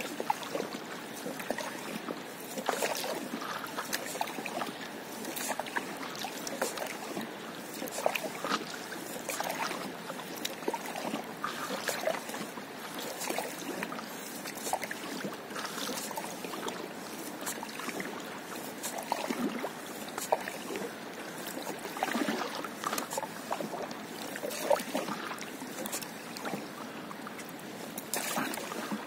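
Water lapping and small, irregular splashes around a stand-up paddleboard on calm sea water.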